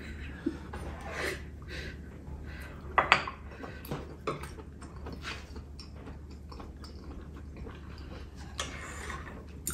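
Chopsticks clicking and scraping against ceramic bowls and plates, with quiet chewing in between; one sharper clink about three seconds in.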